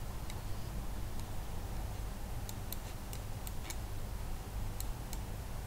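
Computer mouse clicking: about nine light, sharp clicks at uneven spacing, most of them bunched between two and four seconds in, over a low steady hum.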